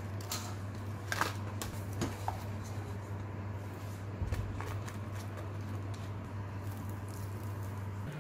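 Fried moong dal pakoras tipped from a steel colander into a dried-leaf bowl, with light rustling and scattered clicks as the bowl is handled. A steady low hum sits underneath.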